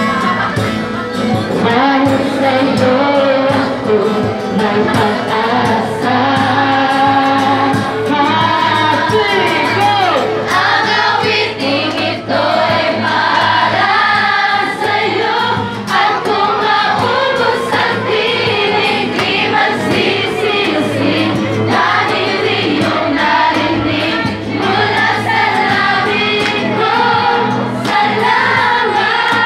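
A woman singing a song into a microphone to an acoustic guitar, with other voices singing along.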